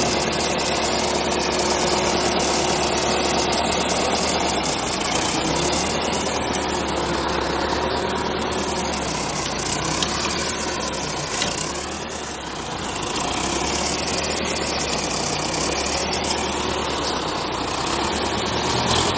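Heavy vehicle engine running steadily, with a slow sweeping whoosh over it that rises and falls in pitch.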